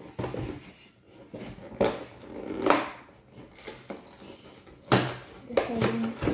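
A cardboard cookie box being handled and opened on a tabletop: a few sharp knocks with scraping and rustling of cardboard in between.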